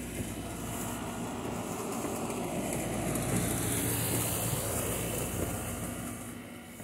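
A passing vehicle: a rumble with a low hum that builds to a peak about halfway through and fades again.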